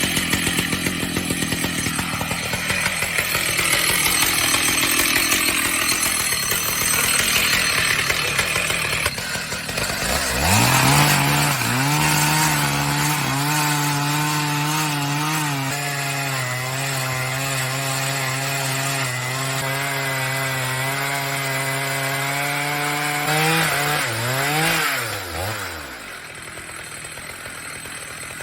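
Chainsaw cutting wood, a dense rough noise for roughly the first ten seconds. Then the saw's engine climbs to a steady high-revving drone held for about twelve seconds, wavers up and down, and falls away near the end, leaving a fainter hiss.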